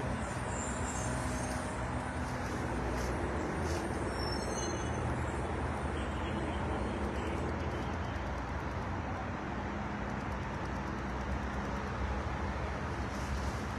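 Steady road traffic noise from slow-moving vehicles on a parkway: a continuous low rumble of engines and tyres.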